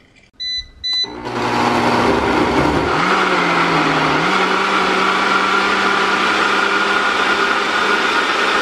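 Two short beeps, then a countertop blender motor starts and purées a full jug of chicken broth and green vegetables for a pozole sauce. The motor's hum steps up in pitch a couple of times over the first few seconds, then runs steadily.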